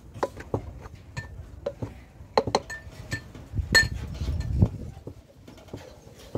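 Spoon scraping and clinking against the side of an aluminium cooking pot while a dry, crumbly flour mixture is stirred. The clinks are irregular, some ringing briefly, and there is a low rumble about halfway through.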